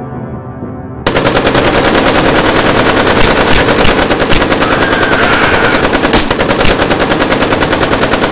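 Automatic gunfire sound effect: a long unbroken burst of rapid, evenly spaced shots that starts suddenly about a second in and is very loud.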